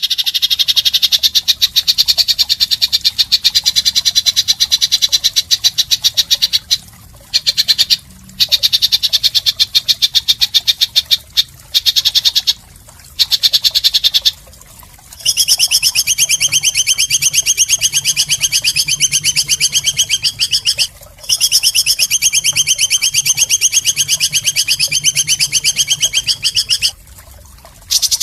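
Recorded animal calls of the harsh, rattling 'isian kasar' type: long trills of rapid, high-pitched pulses, each run lasting several seconds, with brief pauses between runs.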